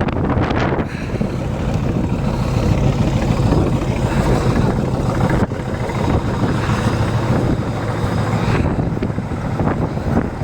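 A vehicle engine running steadily with a low rumble, under a wash of blizzard wind noise.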